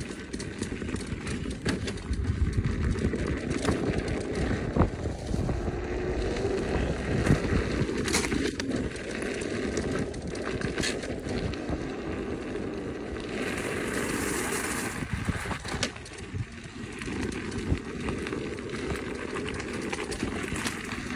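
Riding noise from a KingSong S22 electric unicycle on a rough dirt trail: a continuous rumble of wind and tyre on the ground, broken by frequent knocks and jolts from bumps and stones. A brief stretch of louder hiss comes about two-thirds of the way in.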